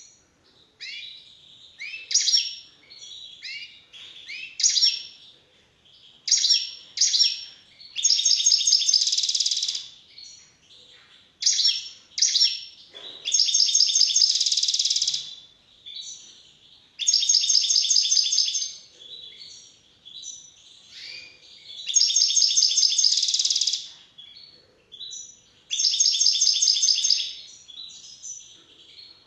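European goldfinch singing: bright twittering chirps broken by five louder rapid trills of a second or two each.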